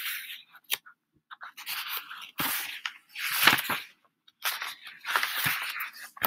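Pages of a book being handled and turned: several short rustling bursts.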